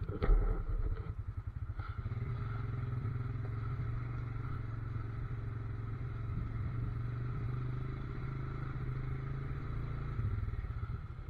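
Off-road vehicle engine running steadily at low revs, with a brief louder burst just after the start.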